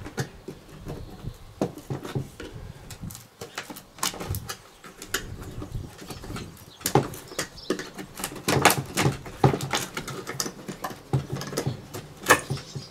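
Irregular scratching, scraping and clicking of a screwdriver working at screws in the top of a vintage equipment case. The screws are just spinning in their holes instead of backing out. The clicks come denser and sharper in the second half, with one loud click near the end.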